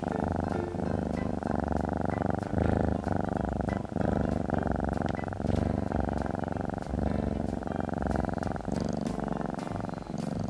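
Domestic cat purring steadily: a continuous, rapidly pulsing rumble.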